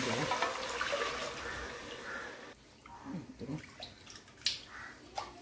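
Milk pouring in a stream from a steel jug into a wide pan of fried vermicelli and carrots, splashing and filling; the pour tails off about two and a half seconds in. Then a spatula stirring the milk, with a few light scrapes against the pan.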